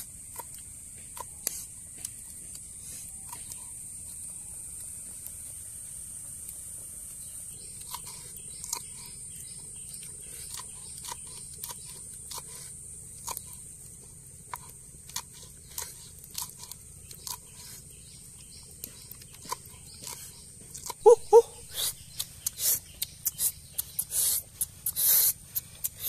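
Small knife tapping and slicing through green chillies on a flat stone board, a string of short light clicks, growing into louder crackling scrapes near the end, over a steady high-pitched hiss.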